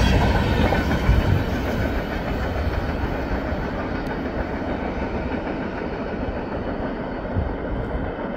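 Steel wheels of a long freight train's last car rolling past on the rails with a clickety-clack, then the train's rolling noise fading as it moves away.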